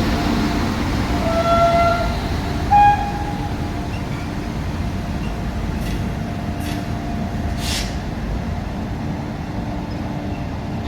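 Goods train hauled by a WAG-9 electric locomotive running with a steady rumble. Two short horn toots sound about 1.5 and 3 seconds in, the second louder, and a few short sharp noises follow later on.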